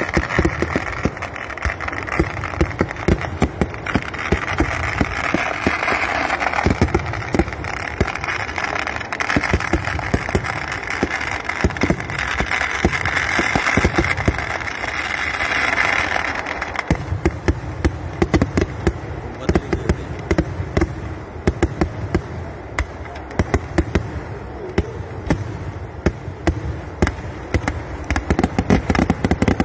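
Kerala vedikkettu fireworks: a rapid, continuous barrage of firecracker bangs. A hissing crackle runs under the bangs until about seventeen seconds in, then drops away, leaving deeper bangs.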